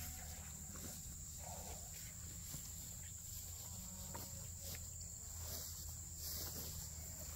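A steady, high-pitched chorus of insects in a grass field, with a few faint rustles.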